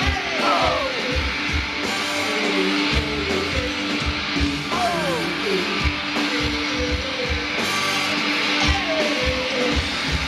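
Live rock band playing loud from the stage: electric guitar over a drum kit, with melodic lines sliding up and down, heard from within the crowd.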